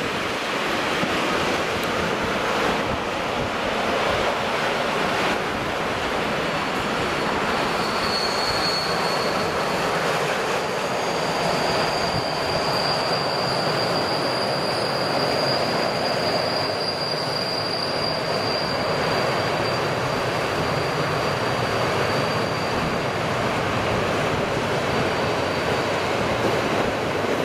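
Mixed freight train's wagons, open wagons and then tank wagons, rolling past on a curve with a steady rumble of wheels on rail. From about eight seconds in a thin, high, steady wheel squeal rides over it, the flange squeal of wheels taking the curve.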